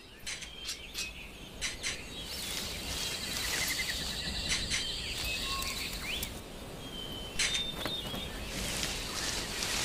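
Forest ambience: scattered short bird chirps over a steady high insect trill and background hiss, with occasional sharp clicks.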